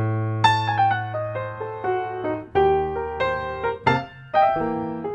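Background piano music: notes and chords struck every half second or so and left to ring, over a held low note.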